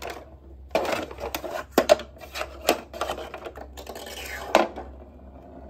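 Hard plastic clicks and knocks as a toy spinning top is handled and set down in a plastic toy dump truck's bed. The sharpest knock comes at about four and a half seconds, when the top is launched, and after it a faint steady whir of the top spinning on the plastic.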